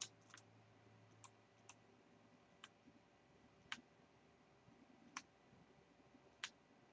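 Faint computer mouse clicks, about six or seven single clicks spaced irregularly a second or so apart, over near silence.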